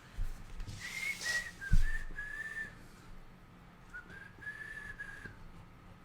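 A person whistling a few high notes in two short phrases, the second starting about four seconds in. A single thump about two seconds in is the loudest sound.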